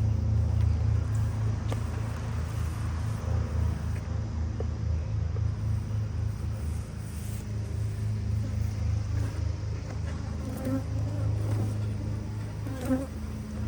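Honeybees buzzing around an opened hive, a continuous steady drone. Near the end, single bees can be heard wavering close past the microphone.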